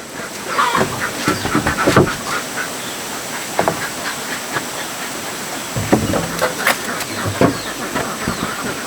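Poultry calling now and then over a steady hiss, with a few scattered light knocks.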